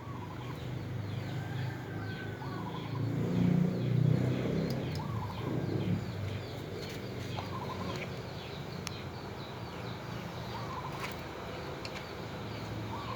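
Suzuki F5A three-cylinder engine running steadily with a knock that is taken for a defective camshaft, a little louder about three to six seconds in. Chickens cluck in the background every couple of seconds.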